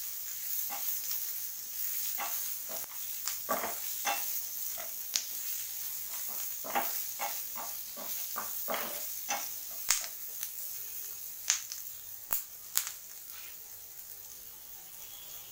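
Chopped onion and green capsicum sizzling as they sauté in a nonstick frying pan, with a spatula stirring them and knocking and scraping against the pan in quick, irregular clicks. The stirring stops near the end, leaving the steady sizzle.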